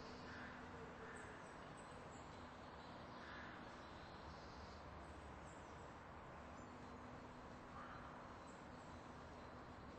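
Near silence: faint steady background noise with a low hum and a few faint, short calls scattered through it.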